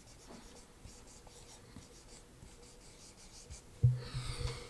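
Dry-erase marker writing on a whiteboard: faint, quick strokes as a word is written out. A sudden louder sound breaks in near the end.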